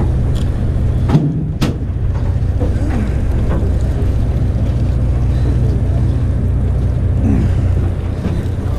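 A fishing boat's engine running with a steady low drone. Two sharp clicks come a little over a second in.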